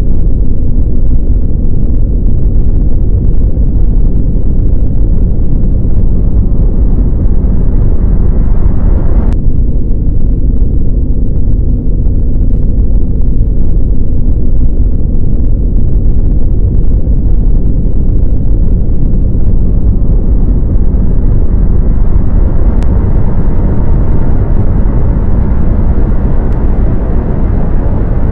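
Deep, steady rumbling drone of a 'space' ambience sound effect, with a faint low hum running through it. About nine seconds in the upper hiss cuts off suddenly, leaving only the low rumble, and it builds back up gradually over the last third.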